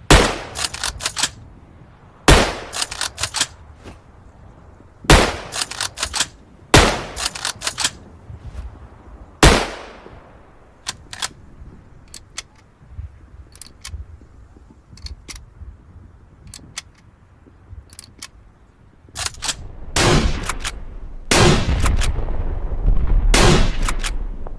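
Springfield bolt-action rifle sound effect: five loud shots two to three seconds apart, each followed by a few quick clicks. Then comes a run of fainter clicks, and near the end a denser stretch of louder bursts.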